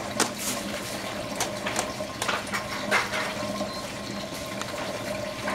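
Water running and trickling in a desktop delta flume tank, with irregular small splashes and drips over a faint steady hum.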